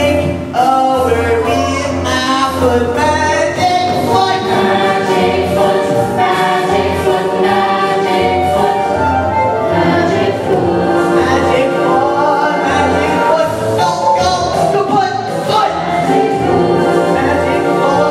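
Several voices singing a musical-theatre song over a musical accompaniment with a steady, regular bass beat.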